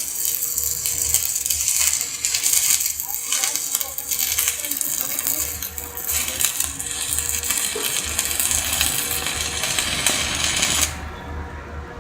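Electric arc welding with a stick electrode, the arc crackling and sputtering steadily, then cutting off suddenly about eleven seconds in as the arc is broken.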